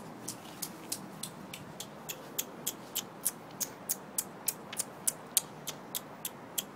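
Grey squirrel giving a steady series of short, high chirps, about three a second: a squirrel's repeated alarm call.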